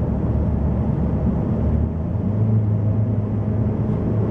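Car driving in slow traffic, heard from inside the cabin: a steady low engine and road drone, with a steady low hum settling in about halfway through.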